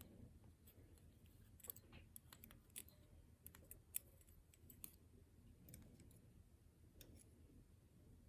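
Faint, irregular small clicks of tiny metal lock parts being handled: pins and springs taken out of a Goal P lock cylinder during disassembly.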